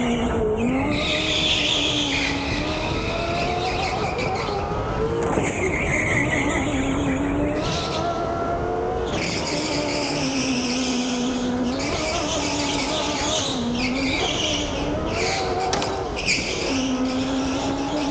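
Biz electric go-kart's motor whining, its pitch dipping and climbing again and again with speed. The tyres squeal through the corners, in long stretches with short breaks.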